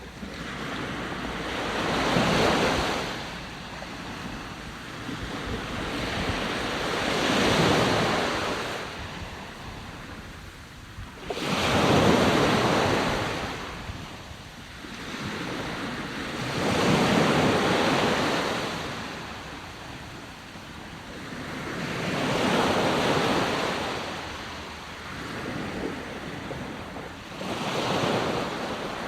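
Sea waves surging in and washing back, six swells about five seconds apart, one of them crashing in abruptly about eleven seconds in.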